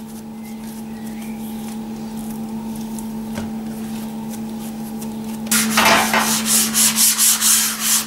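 Hands working a ball of bread dough on a countertop, faint over a steady low hum; about five and a half seconds in, a loud, rapid rubbing starts, several strokes a second.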